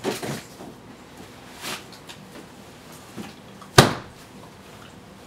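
Handling noises at a kitchen counter: a few soft knocks and a brief rustle, then one loud, sharp knock about four seconds in as a bundle wrapped in cloth is lifted out of a box.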